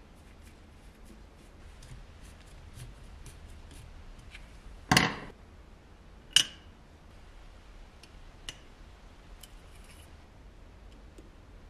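Light clicks and taps of small hand tools and tin toy parts being worked, with a loud clack about five seconds in and a sharp snap about a second and a half later.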